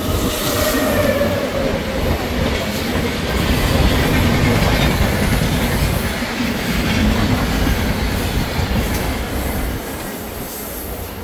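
Mumbai suburban electric local train running along the track, heard from inside the coach as a loud, steady noise of wheels and carriage.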